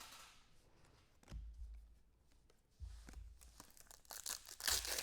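A trading-card pack wrapper being handled, crinkled and torn open, with a few dull handling bumps early on and the loudest crackly tearing near the end.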